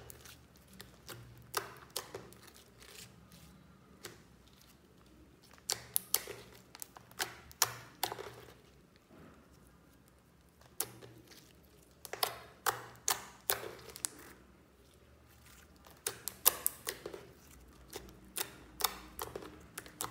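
Slime being squeezed, folded and stretched by hand, giving runs of sharp, wet clicks and pops, with quieter stretches between the runs.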